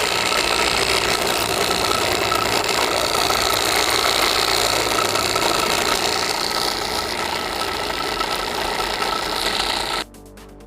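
Homemade mixer grinder, driven by a 12 V DC car air-conditioner motor, running steadily as its jar grinds a dry batch to powder: a loud, constant whine over rattling grit. It stops abruptly near the end.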